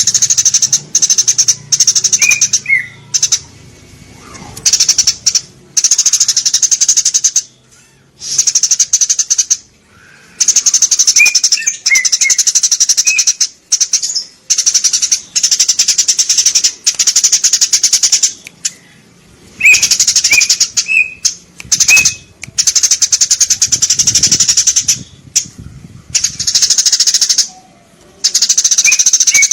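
Eurasian tree sparrows chirping and chattering in dense, rapid runs of a second or two, with short breaks between them and brief single chirps scattered through.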